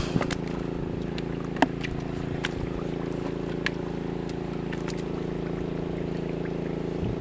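Tractor engine running steadily at a constant speed, driving a water pump that drains a pond, with a few faint clicks over it.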